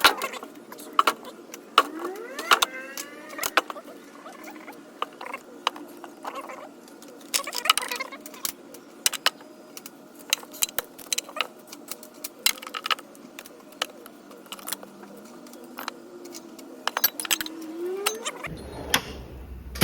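Metal tools clinking and clattering as they are picked up, handled and set down, with two brief rising squeaks.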